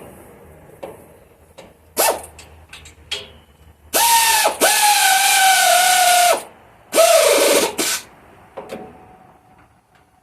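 Pneumatic air ratchet with a 9/16 socket running in short bursts, a whine over the hiss of exhaust air, snugging the exhaust manifold bolts. The pitch sags as it takes up load, and the last burst drops steadily as the bolt tightens.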